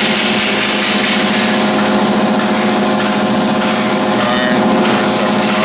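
Steady hum of running machinery: a constant low drone with evenly spaced overtones above it that does not change.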